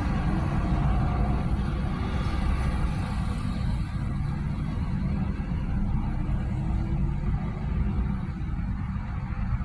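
Road traffic: cars, pickup trucks and SUVs passing on a multi-lane street, a steady wash of engine and tyre noise heavy in the low end.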